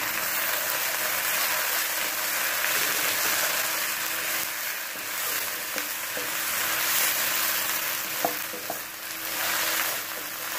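Raw chicken pieces and softened sliced onions sizzling in hot oil in a non-stick kadai as a wooden spatula stirs them. A couple of light clicks come about eight seconds in.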